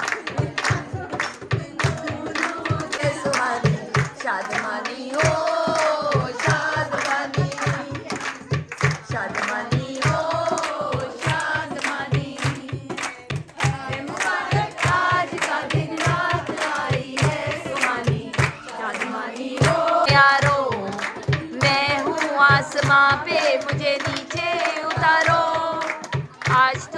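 Several voices singing together over a steady, rhythmic dholak drum beat: dholki wedding songs.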